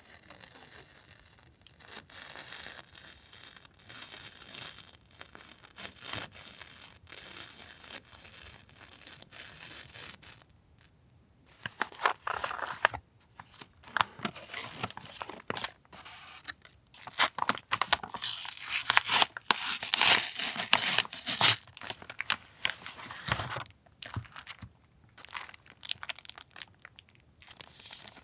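Paper and plastic stationery packaging being handled and unpacked close to the microphone. A steady light rustle at first, then louder irregular rustling and crinkling from about 12 to 23 seconds in.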